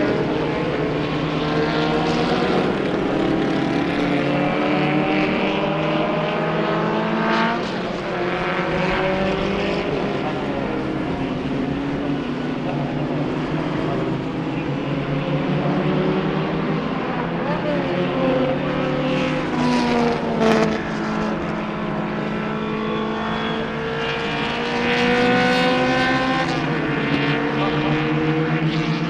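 Several 1960s historic formula racing car engines at speed at once, their overlapping notes climbing in pitch as the cars accelerate through the gears. Near two-thirds of the way in, one note dips and then rises again as a car lifts off and powers back on.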